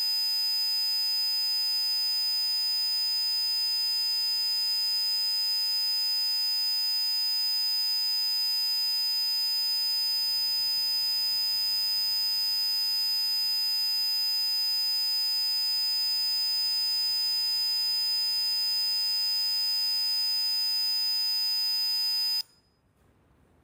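Synthesized frequency-therapy tones of the PC Zapper kind: a steady, piercing high electronic tone with several fainter steady tones under it. They hold unchanged, then cut off suddenly near the end.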